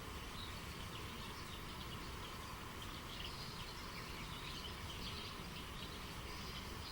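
Steady rushing of a spring-fed stream, with birds chirping in many short, scattered calls over it.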